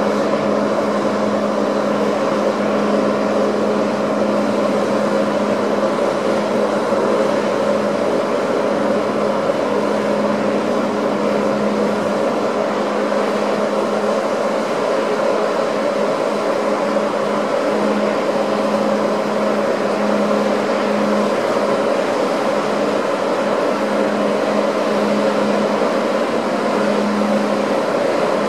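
Steady machinery drone of a car ferry's engines and ventilation heard on deck: an even hum with a couple of held tones over a constant rushing noise.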